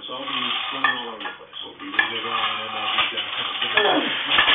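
Plate-loaded barbell rattling and clinking during push-press reps, the loose iron plates knocking on the bar and sleeves with several sharp metallic clicks.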